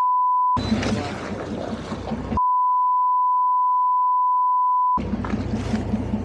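Two steady 1 kHz censor bleeps that replace the sound track completely. The first stops about half a second in; the second runs from about two and a half to five seconds in, blotting out what was said around a phone number being given. Between and after them there is outdoor open-water noise with a low steady engine hum.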